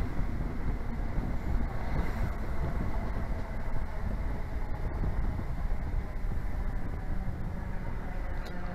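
A diesel train's engine idling at a station stop, a steady low rumble.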